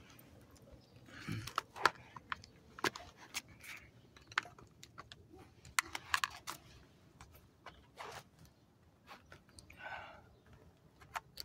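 Faint handling noise: scattered clicks and short rustles as a motorcycle helmet is put on and eyeglasses are handled close to the phone's microphone.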